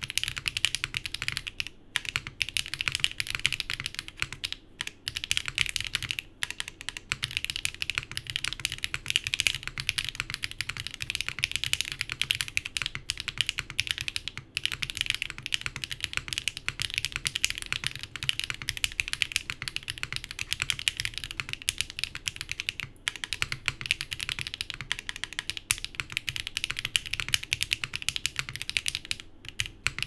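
Continuous touch-typing on a Mode Loop mechanical keyboard with Sillyworks x HMX Hyacinth V2U switches, GMK Fuji keycaps, an aluminium plate and solid mounting blocks: a dense, even stream of keystroke clacks, broken by a few brief pauses.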